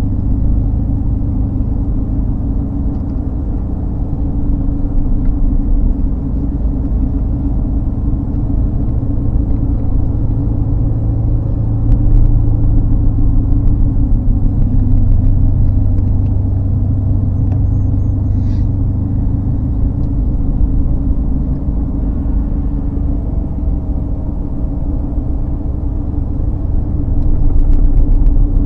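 Steady low rumble of a vehicle being driven on the road.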